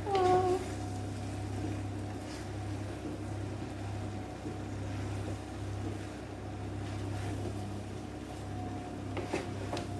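Steady low mechanical hum in a kitchen. A short falling vocal sound comes right at the start, and a few light clicks come near the end.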